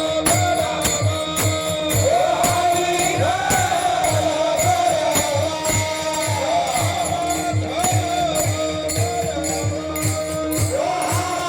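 Varkari devotional singing in a panchapadi tune: a voice sings a gliding melodic line over pakhawaj strokes on a steady beat of about two a second, with metallic jingling percussion and a held drone note.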